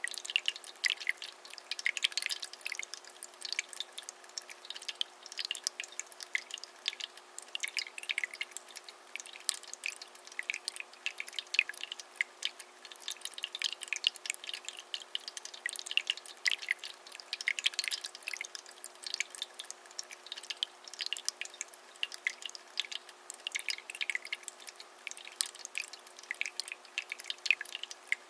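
Water spilling over the tiers of a small three-tier polyresin tabletop fountain, falling as a steady run of small, irregular drips and splashes, with a faint steady hum underneath.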